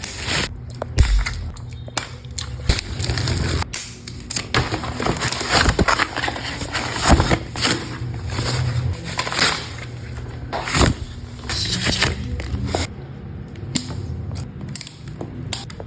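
Bicycle packaging being handled and unwrapped: irregular rustling and scraping with many short knocks and clicks.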